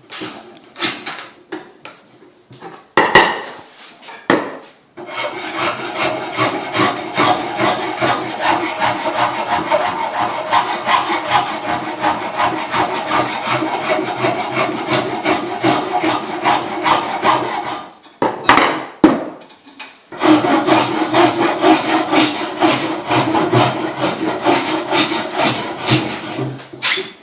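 A wooden bow being shaped by hand with a rasping tool, in quick, even back-and-forth strokes. A few separate strokes come first, then a long steady run, a short pause, and a second run.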